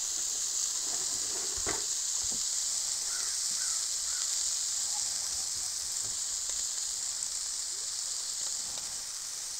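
Burger patties of ground beef and pork sizzling on a hot Blackstone flat-top griddle, a steady hiss with a few light clicks.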